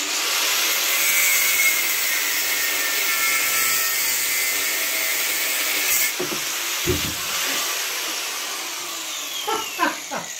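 Angle grinder's cutting disc cutting through a seized steel brake hose fitting on an axle, a steady grinding hiss and whine. A sharp click about six seconds in.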